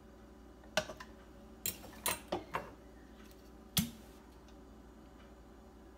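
A metal fork clicking and tapping against a tin can and a plastic blender cup while canned mango slices are lifted out, about six light clicks in the first four seconds, the last one a duller knock.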